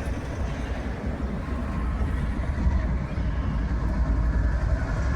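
Intermodal freight train passing, a steady low rumble that grows slightly louder about two seconds in.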